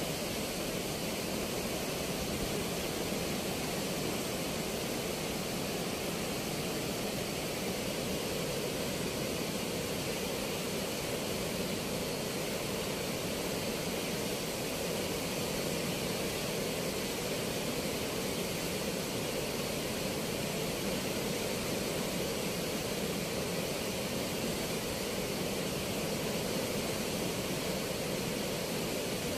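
Steady rush of water pouring through the open gates of a river weir, an even noise with no let-up.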